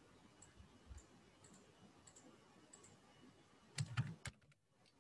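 Faint scattered clicks, then, near the end, a quick run of three or four louder clicks with a dull knock: someone using a computer keyboard and mouse.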